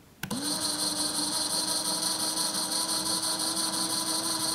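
Compact DeWalt cordless drill motor spinning up and running at a steady speed for about four seconds, then stopping. It runs forward with the chuck held by hand, so the chuck jaws close.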